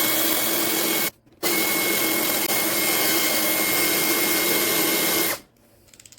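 Cordless drill running steadily at low speed with a constant high whine while drilling out the rivet of a die-cast toy car for a wheel swap. It stops briefly about a second in, starts again, and cuts off near the end.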